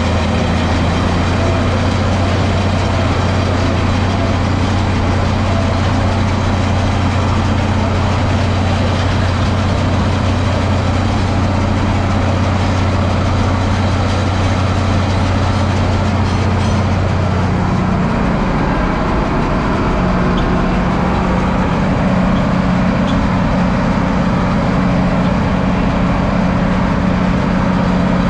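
Tractor engine running steadily, its low drone stepping up in pitch about eighteen seconds in.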